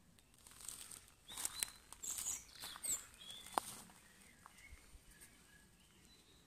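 Woodland birds chirping faintly, with a scatter of small clicks and rustles in the first half, the sharpest a little past the middle.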